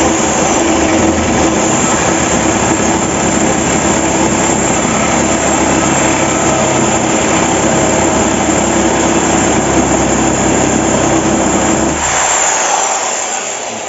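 Power tool motor running steadily at full speed with a high whine, then switched off about twelve seconds in and spinning down over the next two seconds.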